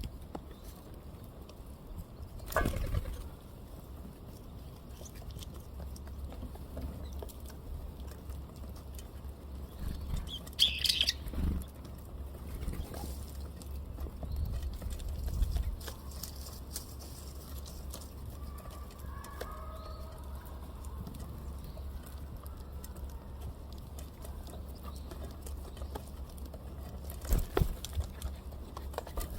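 Small birds at a feeding spot: brief wing flaps and rustles a few times as they fly in and out, with a few faint short calls midway.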